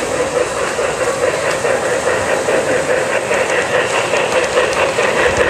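Model steam locomotive running on a three-rail O gauge layout as it comes toward the microphone: a steady running noise of wheels and motor on the track, with faint, quick clicks from the rails growing from about halfway through as it draws close.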